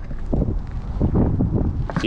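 Wind buffeting the microphone, a dense low rumble, with the rustle of clothing rubbing close to the camera.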